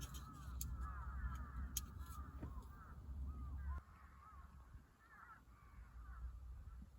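Birds calling over and over, many short overlapping calls, over a low wind rumble that eases about four seconds in.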